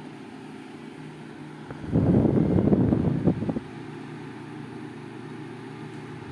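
Arno Silence Force VF30 desk fan running with a steady motor hum. From about two seconds in, gusts of its airflow buffet the microphone for about a second and a half, then the hum continues alone.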